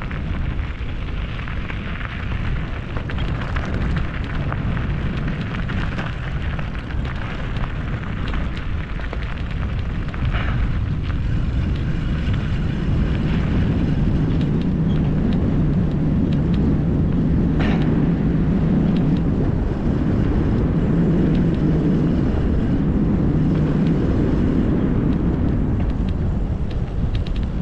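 Wind buffeting the microphone of a camera moving quickly downhill, over a steady low rumble from tyres on a rough track. The rumble grows heavier about halfway through, and there is one sharp click a little after that.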